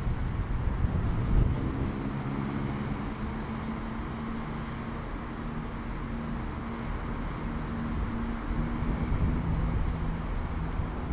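Two Class 168 diesel multiple units rolling slowly into the station side by side, their underfloor diesel engines running with a steady hum over a low rumble.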